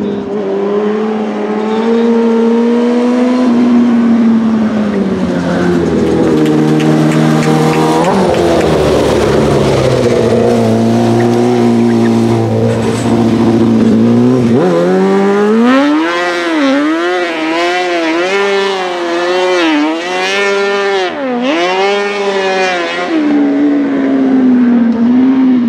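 Honda 600cc engine of a racing-modified Piaggio Ape three-wheeler running at high revs. In the first half the engine speed holds fairly steady with a few shifts. From about halfway the throttle is blipped up and down in quick succession, about once a second, as the little three-wheeler drifts and spins.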